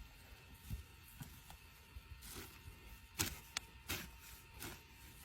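Digging in root-matted, sticky soil: a scattering of irregular thuds and scrapes, the sharpest a little past three seconds in.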